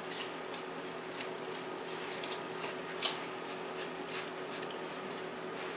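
Faint scraping and light ticks of a spoon and fingers breaking up a chilled, crumbly brown-sugar, flour and butter topping in a bowl, the clearest tick about three seconds in. A steady hum runs underneath.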